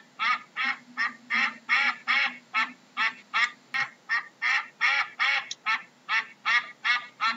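A duck quacking in a rapid, even series, about three short quacks a second.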